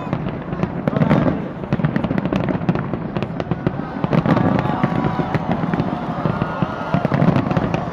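Fireworks display going off in a dense, continuous barrage of overlapping bangs and crackles.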